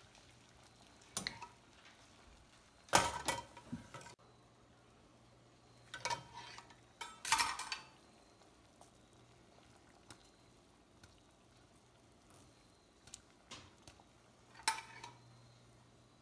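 Metal cookware clanking: a wire-mesh strainer and a copper pot lid knock against a stainless pot of boiling water. There are several separate sharp clanks, the loudest about three seconds in, over a low steady hum.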